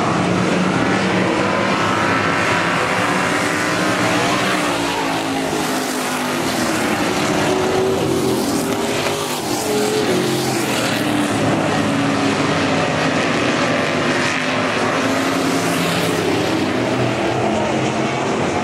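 A pack of dirt-track stock cars racing, several engines running hard at once, their pitches rising and falling as the cars go through the turns.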